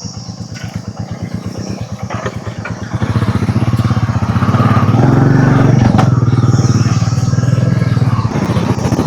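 Motorcycle engine running with a rapid, even beat. It gets louder about three seconds in and revs harder around the middle, as if pulling away.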